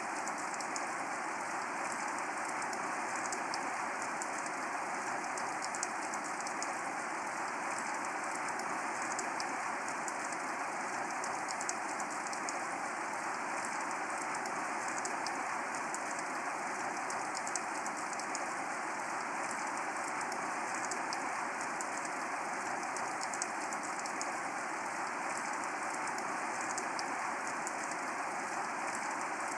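Steady rain falling, a constant even hiss with scattered sharp ticks of individual drops.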